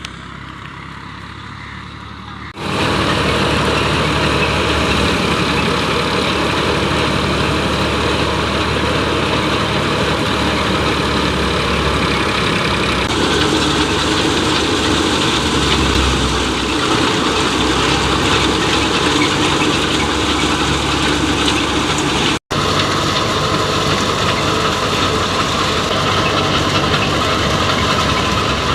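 Wheat thresher running, a dense, steady machine noise that grows much louder about two and a half seconds in as the threshing gets under way.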